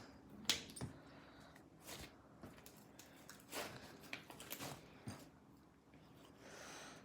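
Slime being squished and worked by hand, with a scattered series of soft clicks and squelches and a short hiss near the end.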